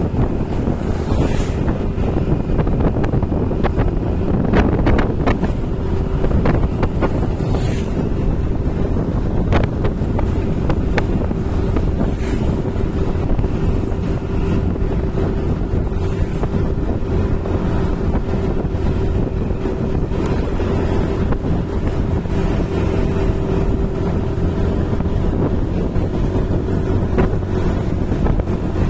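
Heavy wind buffeting the microphone over a steady vehicle drone, with a faint constant hum and scattered small knocks, as when filming from a moving vehicle.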